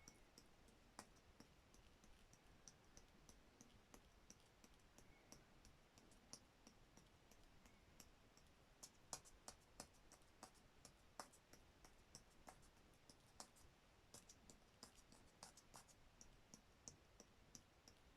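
Faint, scattered small clicks and taps, a few a second and busier in the second half, from art materials being handled while paint is applied to a journal page.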